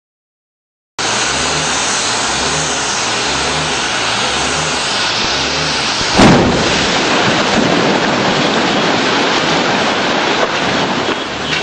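A gas explosion in a street: a loud steady rushing noise, then about halfway through a single sudden loud blast, followed by continued rushing and rumbling.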